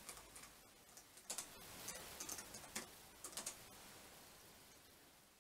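Faint, scattered clicks of typing on a laptop keyboard, a few keystrokes at a time with short pauses between, stopping shortly before four seconds in.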